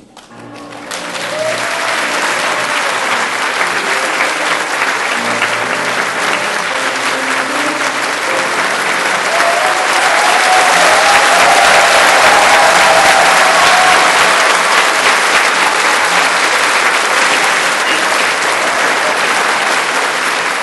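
A large audience applauding steadily, swelling in the first couple of seconds and peaking about halfway through, with a piano playing faintly underneath.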